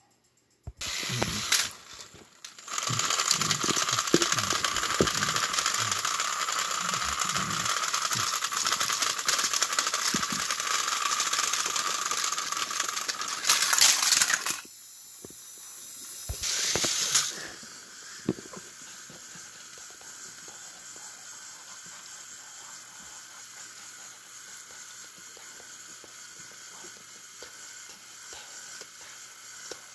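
Battery-powered motorized toy train engines running on plastic track: a steady hissing whir with scattered clicks and rattles, loud for about the first fourteen seconds, then two short loud bursts and a quieter steady whir.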